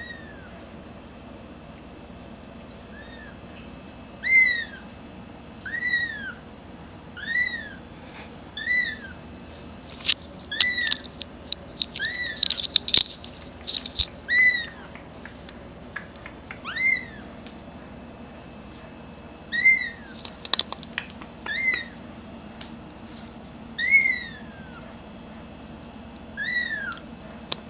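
A very young kitten meowing repeatedly, calling for its mother. The meows are high and thin, each one rising then falling in pitch, about every second and a half. In the middle there is a brief cluster of sharp clicks and scratches.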